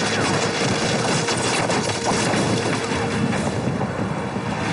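Battle sound effects from a war drama soundtrack: a loud, continuous rumbling din with a few sharp cracks in the first second or so.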